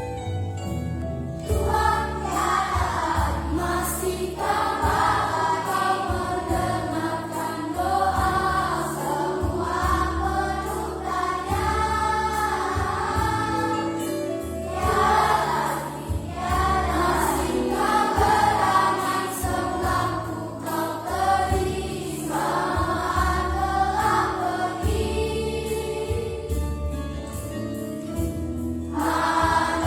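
Children's Sunday-school choir singing a Christian song over instrumental accompaniment. The voices come in about a second and a half in.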